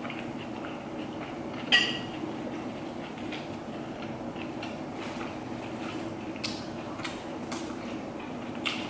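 Metal spoon clinking and scraping against a plastic takeaway container as minced filling is scooped onto a lettuce leaf. One louder clink comes a little under two seconds in and a few lighter taps come near the end, over a steady low hum.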